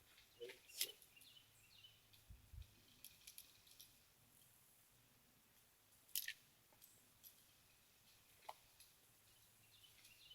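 Near silence with a few faint, short clicks and rustles, the clearest about a second in and about six seconds in.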